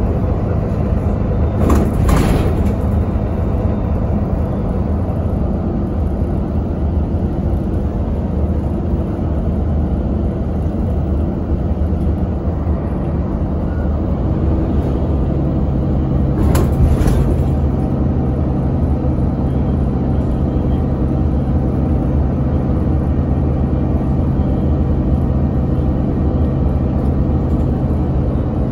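Bus engine and road noise heard from inside the passenger cabin: a steady low drone, with the engine's hum shifting to a new steady note about halfway. Two brief whooshes stand out, one about two seconds in and one about seventeen seconds in.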